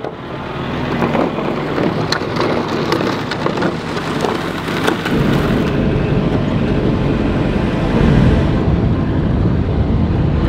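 John Deere tractor running and moving along a rough dirt road, heard from inside its cab: a dense hiss of rattling and small clicks, with the engine's low rumble growing stronger about halfway through.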